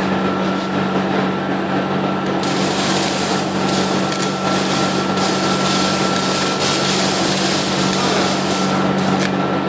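AC stick welder striking an arc: the electrode is scratched against the metal and the arc crackles and sputters in fits as it tries to catch, over the machine's steady hum. The crackle is weak for about the first two seconds, then comes on strongly.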